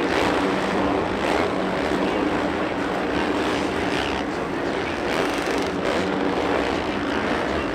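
Supercross dirt bike engine running hard, a dense, steady motor buzz at race pace.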